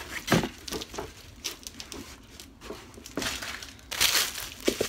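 Clear plastic wrapping crinkling and rustling as boots are handled inside their bags, loudest about four seconds in, with a soft thump near the start.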